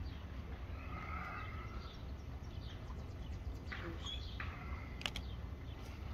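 Faint outdoor ambience: a few short bird chirps over a steady low rumble, with a single sharp click about five seconds in.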